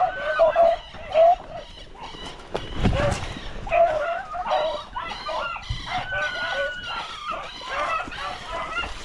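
A pack of beagles giving tongue while trailing a rabbit: many short, high yelping bays, repeated and overlapping.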